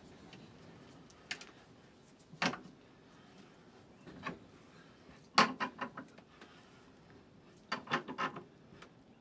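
Bench vise being closed to press a white plastic part into a steel tube: a series of sharp clicks and creaks, a few single ones, then quick clusters around the middle and again near the end.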